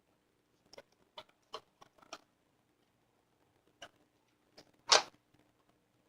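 Scattered light clicks and taps of plastic Lego pieces as the built Volkswagen Campervan model (set 10220) is handled, with a louder knock about five seconds in.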